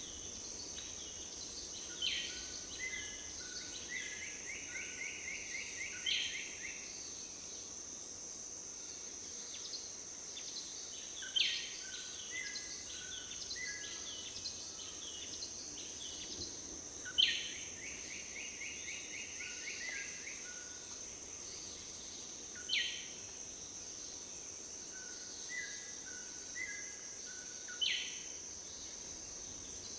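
Rainforest insects keeping up a steady high drone while a bird sings a repeated phrase about every five or six seconds: a sharp high note followed by a few lower notes, twice running into a quick trill.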